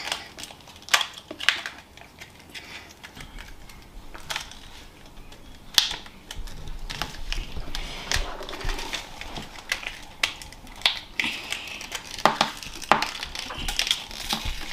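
Small cardboard candy boxes being opened and handled on a table: irregular clicks, taps and crinkling of cardboard as the boxes are pulled open and the hard candy sticks are taken out.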